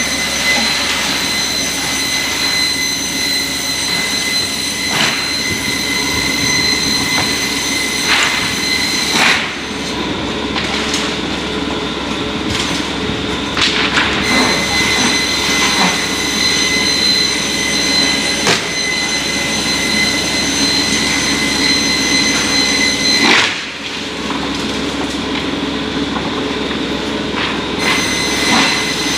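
Heavy-duty single-spindle multi-blade rip saw running, a steady loud machine noise with a high whine, knocking now and then, and briefly dropping in level twice.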